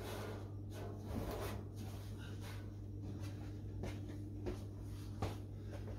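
Faint rubbing, taps and shuffling of a person handling spark plug leads and moving around an engine bay, over a steady low hum.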